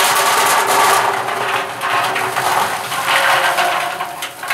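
Green peanuts in the shell pouring from a mesh sack into the perforated metal basket of a crawfish boiling pot: a steady, dense rattle of shells on metal that thins out near the end as the sack empties.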